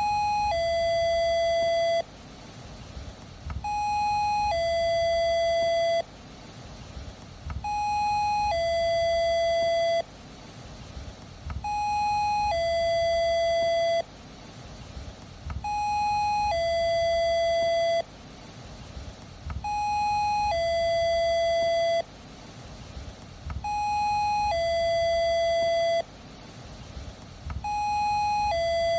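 Electronic two-tone doorbell chime ringing "ding-dong" over and over, about every four seconds. Each ring is a short higher note followed by a longer lower note that cuts off abruptly, with a low background rumble in the gaps between rings.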